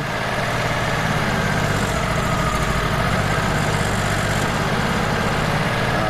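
Wood-Mizer LT35 Hydraulic sawmill's engine running steadily, without the blade cutting.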